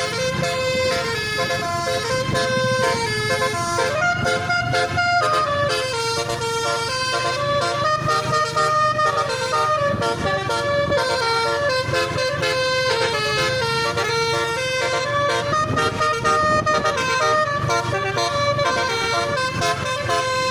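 Indonesian bus 'telolet' multi-tone horn playing a melody of stepping notes without a break, with a vehicle engine running underneath.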